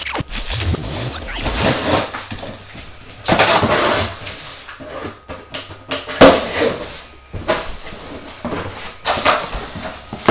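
Gerber knife slitting the tape and cardboard along the top of a large shipping box, then the flaps pulled open and cardboard scraping and rustling as hands work inside, in loud irregular bursts.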